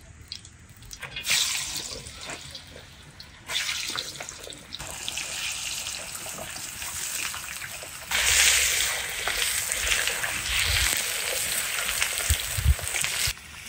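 Running water, in stretches that start and stop abruptly, loudest in the last five seconds or so.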